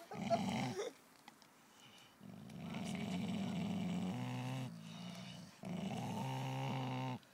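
Dogs growling while tugging on a stick between their teeth: three low growls, the second and third each lasting a couple of seconds.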